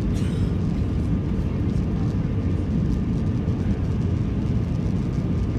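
Steady low rumble of an Airbus A320's engines and rushing air, heard from inside the passenger cabin in flight, with a faint steady whine above it.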